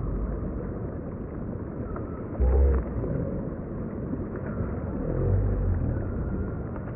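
Steady rush of river water with low wind rumble on the microphone, a brief low thump about two and a half seconds in, and the rumble swelling again around five seconds.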